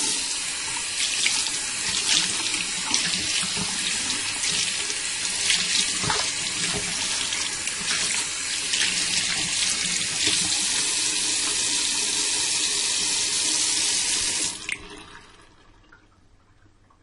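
Water running from a tap into a sink while hands are washed under the stream, with irregular splashes breaking the steady flow. Near the end the tap is turned off and the water trails away.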